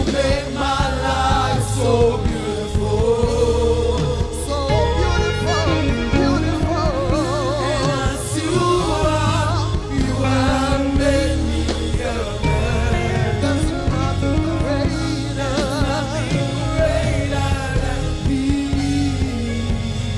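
Live gospel praise-and-worship music: a band with a heavy bass line under sung vocal lines with a wide vibrato, going on without a break.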